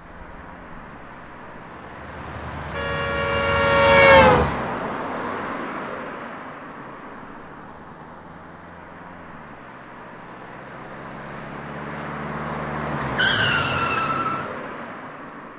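Cars driving past on a road: about four seconds in, a passing car sounds its horn, the pitch dropping as it goes by. A second vehicle passes near the end with a shorter, higher tone that falls slightly.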